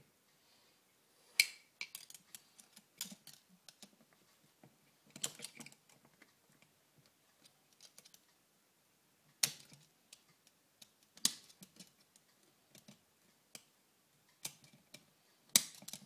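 Irregular sharp metal clicks and knocks, the loudest every few seconds, as parts of an early Harley-Davidson Shovelhead four-speed gearbox are handled and fitted into the open gearbox case.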